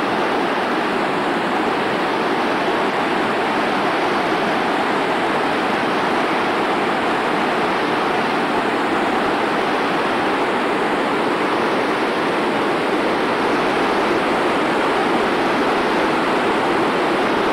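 Creek rapids: water rushing and churning over boulders in a steady, unbroken wash of white-water noise.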